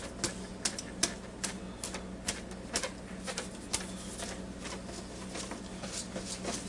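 Kraft Parmesan cheese shaker being shaken over food, giving sharp clicks about twice a second that thin out after about four seconds. A steady low hum runs underneath.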